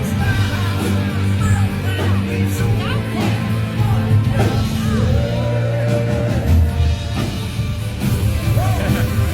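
Live heavy metal band playing loudly, with distorted guitar and bass holding low notes and voices singing and yelling over them.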